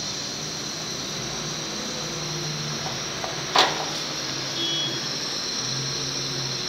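Biogas burner flame on a single-burner gas stove, burning with a steady hiss. A single sharp click about three and a half seconds in.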